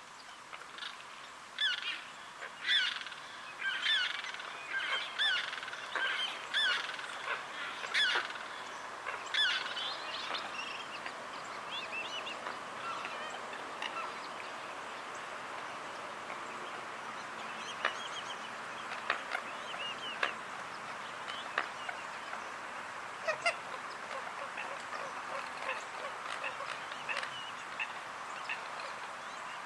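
Wetland birds calling: a run of loud, repeated honking calls over roughly the first ten seconds, about one to two a second. After that, a steady wetland background with scattered short chirps.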